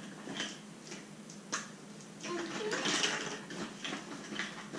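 Hollow plastic Easter eggs clicking and clattering against each other and the box as hands rummage through them. The knocks are irregular, with a busier spell of rattling around the middle.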